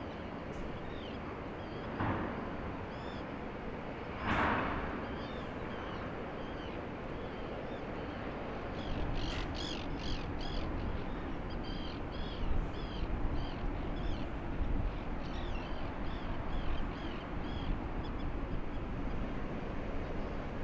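Gulls calling, a run of short repeated cries over a steady low rumble of wind and harbour noise. Two brief rushes of noise come about two and four seconds in.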